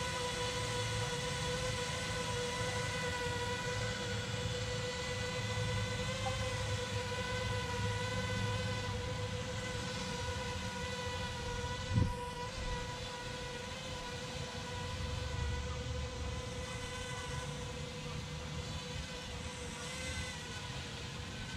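Feima Robotics J.ME quadcopter drone hovering in flight, its propellers giving a steady whine over a low rumble. A single sharp knock comes about halfway through.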